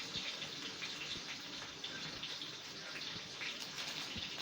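Kitchen tap running steadily, water splashing as onions are rinsed under it, with a few light knocks.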